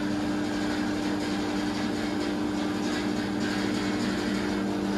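Electric hydraulic pump motor of a two-post vehicle lift running steadily as it lowers a car shell: a constant two-note hum with a hiss over it.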